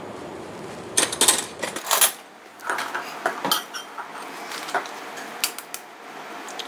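A series of sharp clinks and taps: eggs knocking against a glass bowl as they are lifted out and set down, loudest about a second in, then a fork rapping an eggshell to crack it near the end.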